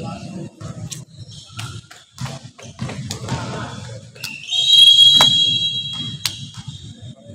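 A shrill whistle blown and held for about two seconds, starting a little past the middle, over the low murmur of a crowd in a hall. A few sharp thuds of a ball come before it and during it.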